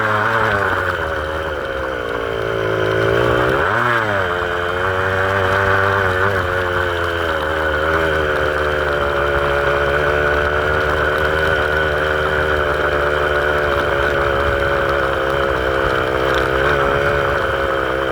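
A vehicle engine running under way. Its revs dip early, rise and fall sharply around four seconds in, then hold steady.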